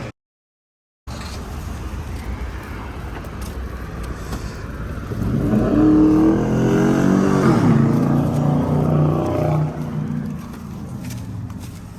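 A car running with road rumble, louder for several seconds in the middle as its engine pulls harder, its pitch stepping and gliding, then settling back. The audio drops out completely for about the first second.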